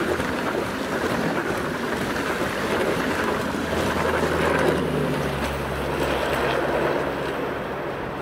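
Rushing, rumbling wheel and air noise of a high-speed Strizh passenger train's Talgo coaches passing close by at speed. The last coach goes by about four seconds in, and the noise slowly fades as the train moves away.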